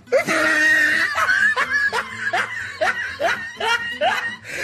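A person laughing in a run of short laughs, about three a second, each rising in pitch.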